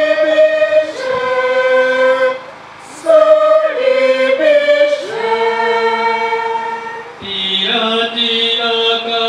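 Choir singing the crowd's part of the Swahili Good Friday Passion, the cry for Jesus to be crucified, in held, chant-like phrases. There is a short break about two and a half seconds in, and the singing grows fuller near the end.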